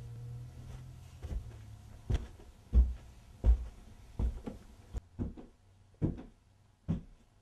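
Footsteps going up stairs: a run of heavy, evenly paced thumps about every 0.7 seconds, starting about two seconds in, after a low hum.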